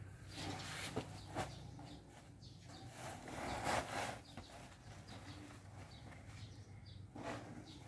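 Rustling and scraping as a sack and loose feed ingredients are handled on a concentrate pile, loudest about three to four seconds in, with a few faint bird chirps.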